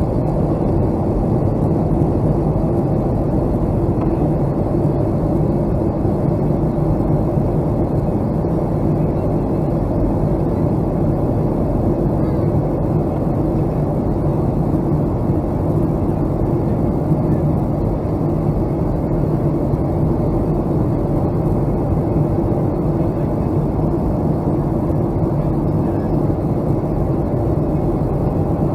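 Boeing 757-200's jet engines, a steady drone with even hum tones that does not change.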